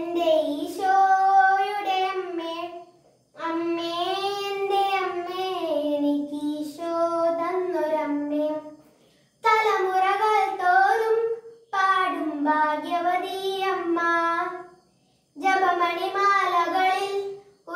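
A boy singing a Malayalam Marian hymn unaccompanied, in about five sung phrases broken by short pauses for breath.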